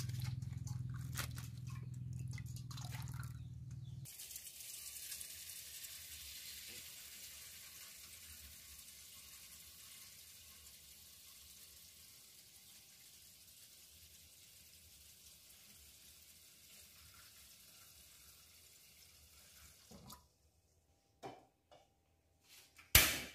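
Prawns being swished in a plastic colander in a steel basin of water, with clicks and splashes over a low hum. Then a kitchen tap runs steadily into an aluminium pot, growing slowly quieter as it fills, followed by a few knocks and one sharp, loud clack near the end as the pot goes onto the gas stove.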